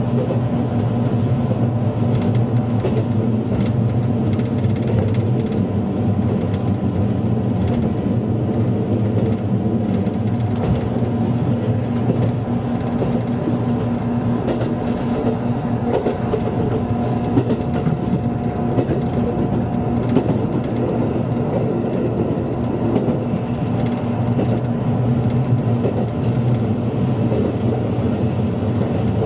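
Steady running noise of a limited express train heard from inside the car: an even rumble of wheels on rail with a low, constant hum.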